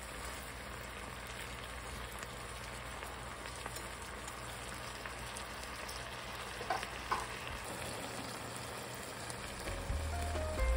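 Soy-balsamic sauce bubbling and sizzling steadily in a stainless frying pan as it reduces around chicken drumsticks and rice cakes, with a couple of light clicks about seven seconds in.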